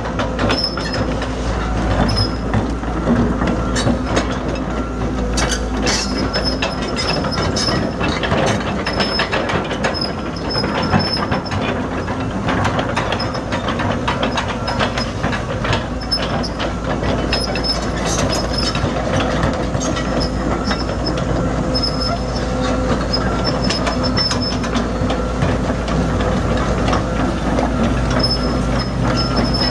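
Kobelco SK150LC excavator running on its Isuzu four-cylinder turbo diesel while its steel-tracked undercarriage clanks and clicks as the machine moves. Short high squeals of metal on metal come and go throughout.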